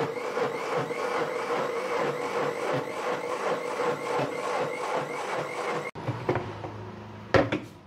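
Electric mixer grinder churning spinach with a little added water into a smooth paste: a steady motor whine that pulses about three times a second. It cuts off abruptly about six seconds in, and a couple of knocks follow near the end.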